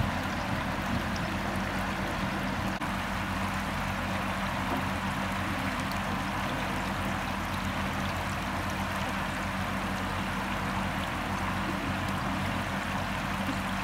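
Shallow floodwater flowing steadily across a flooded path in an even, unbroken wash, with a steady low hum underneath.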